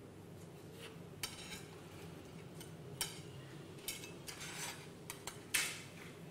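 Metal serving utensil and cutlery clinking and scraping against plates as pizza slices are lifted and served: a scattering of light clinks, a few a second apart, with a longer scrape about four and a half seconds in.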